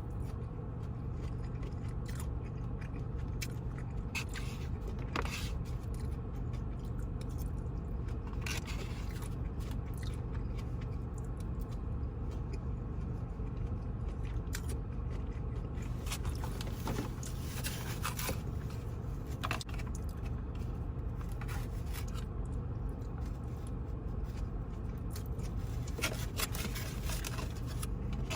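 A person eating takeout food: chewing and crunching, with scattered scrapes and clicks, over a steady low background hum.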